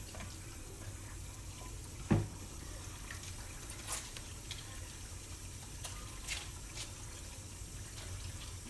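Kitchen sink faucet running steadily while hands are washed under it, with a few light knocks and one louder thump about two seconds in.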